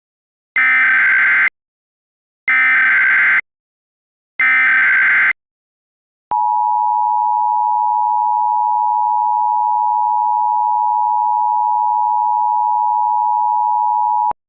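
Emergency Alert System SAME header: three short bursts of warbling data tone, each about a second long and about two seconds apart. They are followed by the EAS two-tone attention signal, a steady dual tone held for about eight seconds that cuts off sharply.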